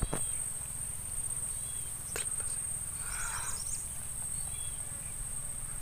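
Steady high-pitched drone of insects over a low wind rumble on the microphone, with a few faint clicks and a brief faint chirp about three seconds in.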